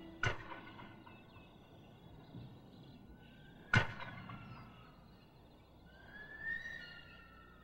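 Two sharp knocks, about three and a half seconds apart, each with a brief ringing tail. Faint birdcalls that rise and fall in pitch follow in the second half.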